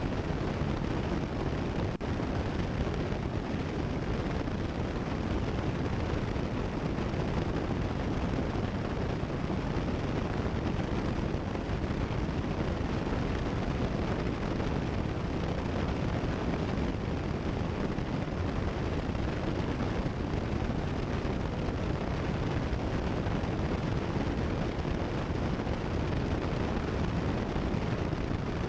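Cessna 172 Skyhawk's engine and propeller in steady cruise, a constant low drone of cabin noise heard through the headset intercom audio.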